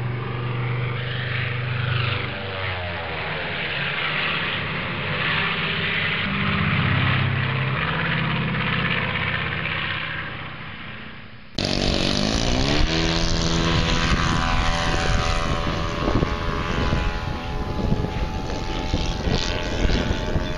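Engine of a Hangar 9 Saratoga radio-controlled model airplane, its propeller drone rising and falling in pitch. About eleven seconds in, the sound cuts abruptly to the plane in flight, the engine note sliding and shifting as it flies overhead.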